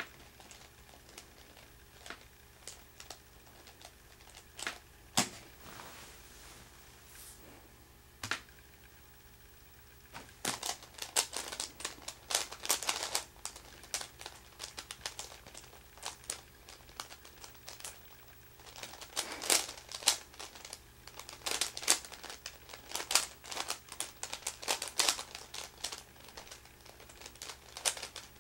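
A Meffert's 4x4 puzzle cube being turned rapidly by hand: its plastic layers click and clack in quick runs of turns. The clicks are scattered at first, then come in dense rapid runs from about ten seconds in.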